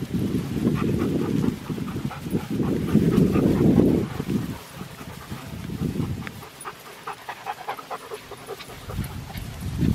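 Bernedoodle puppies and their adult dogs panting and scuffling about in grass, with short faint puppy calls, over bursts of low rumble that die down after about four seconds.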